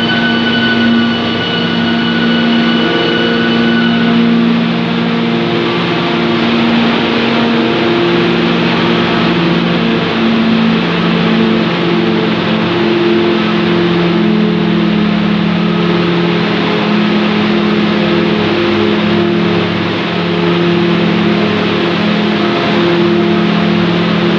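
7-ply corrugated cardboard production line running: a loud, steady machine drone with several low hums. A high whining tone stops about four seconds in.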